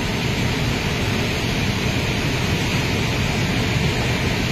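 A swollen, muddy river in flood rushing steadily: an even, unbroken noise of fast floodwater.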